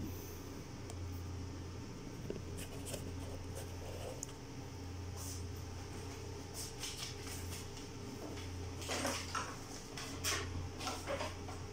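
Light clicks, knocks and rustles of equipment being handled, over a steady low hum; the handling sounds cluster about nine seconds in.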